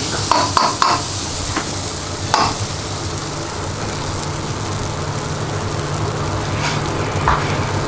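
Curry leaves, tomato and onion frying in oil in a steel wok, with a metal ladle clinking and scraping against the pan several times in the first second or so and once or twice after. A steady low hum runs underneath.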